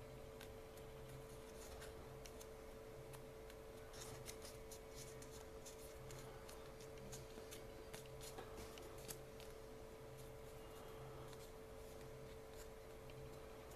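Faint crinkling and crackling of a folded sheet of origami paper being pinched and shaped by hand: a run of small paper clicks, busiest in the middle, over a steady hum.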